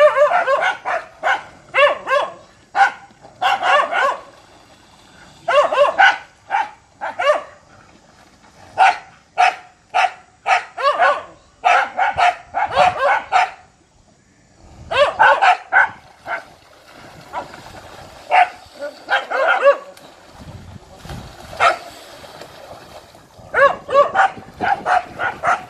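Dogs barking in quick runs of repeated barks with short pauses between, while they attack a monitor lizard in a pond.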